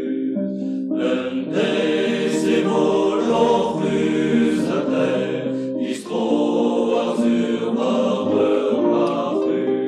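A group of voices singing a Breton marching song in chorus, with music behind them.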